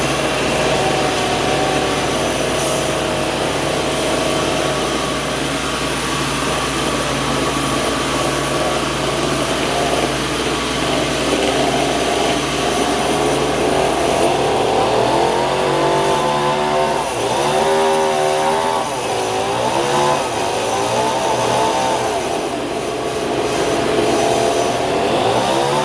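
Sawmill machinery running steadily. In the second half its pitch rises and falls repeatedly, as a motor changes speed under varying load.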